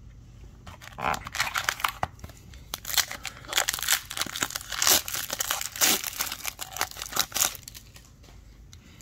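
Shiny plastic wrapper of an Upper Deck Series 2 hockey card pack being torn open and crinkled by hand, a run of irregular crackles starting about a second in and stopping shortly before the end.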